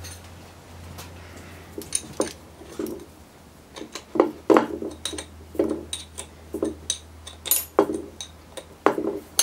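Steel ring spanner clinking and knocking against the clutch hub nut of a Sanden scroll AC compressor, in a run of quick irregular metallic strikes starting about two seconds in, over a steady low hum.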